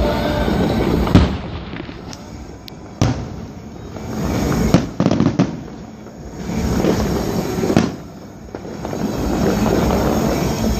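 Fireworks display: loud bangs of bursting shells every second or two, with several in quick succession about five seconds in, between swelling stretches of dense crackling.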